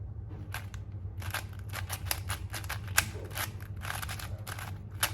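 A 4x4 Rubik's cube being turned by hand, its plastic layers clicking in quick irregular runs of several turns a second as the last layer is solved.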